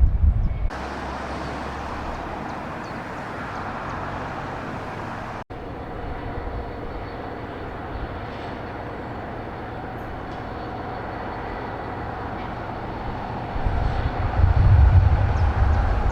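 Steady noise of a train running past, with a heavier low rumbling near the end.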